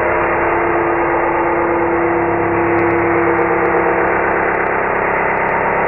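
Table saw blade spinning and cutting a thin board, played back slowed down, so it comes out as a dense, low, drawn-out drone with a steady hum through it.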